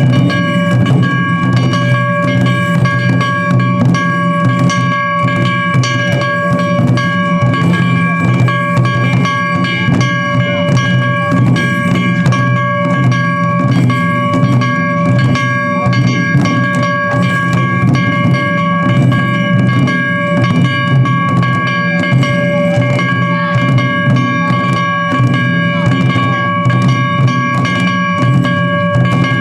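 Japanese festival taiko drumming: dense, rapid drum strikes with a heavy low boom, over steady high tones held throughout.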